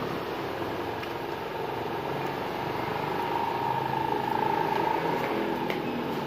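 Steady background vehicle noise, growing louder about three seconds in and easing again shortly before the end.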